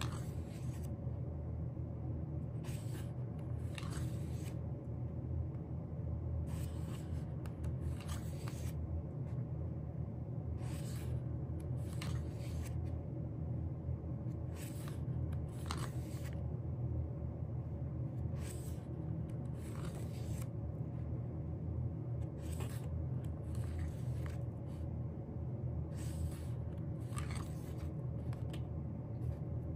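Paper and packaging from an album being handled: short rustles and scrapes every second or two, over a steady low hum.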